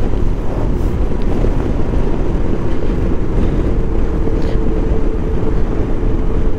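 Motorcycle riding at road speed: steady engine drone mixed with heavy wind rush on the microphone, with a faint steady engine note coming through about halfway.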